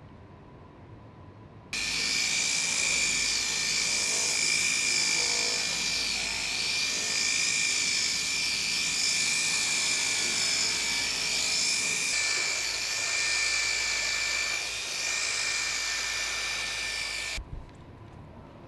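Hand-held rotary sander with a spinning disc pad running at a steady high-pitched whine over hiss. It starts suddenly about two seconds in and cuts off abruptly near the end.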